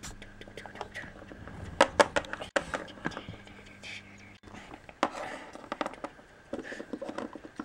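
Quiet, whispered speech with a few sharp clicks of hard plastic toy figurines being handled and set down on a tabletop.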